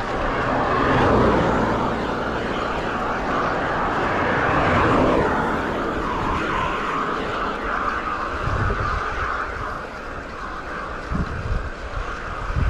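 Wind rushing over the microphone of a road bike in motion, with a broad road and traffic noise that swells and fades about a second in and again around five seconds.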